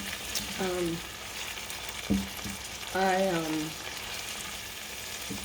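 Steady frying sizzle in a large cast iron frying pan, with a single knock about two seconds in and a voice sounding briefly twice.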